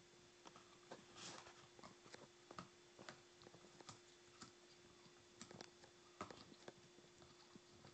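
Boston terrier chewing a red chew toy: faint, irregular clicks and squeaks of teeth working on the toy.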